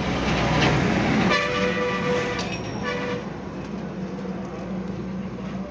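A vehicle horn honks twice, a long honk then a short one, as a vehicle passes, its noise swelling to a peak about a second in; a steady low hum remains afterwards.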